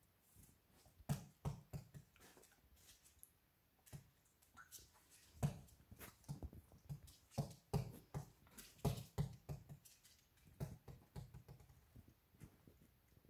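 A Maltese puppy playing alone on a hardwood floor: irregular light taps and knocks as its claws click on the boards and its small toy knocks against the floor. The louder knocks come about five and a half and nine seconds in.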